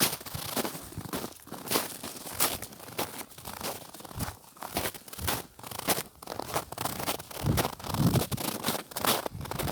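Footsteps crunching on snow, about two steps a second, with a low rumble near the end.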